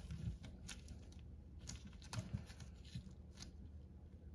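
Faint, irregular soft clicks and rustles of disposable-gloved fingers pressing and spreading plumber's putty into a plastic faucet plate.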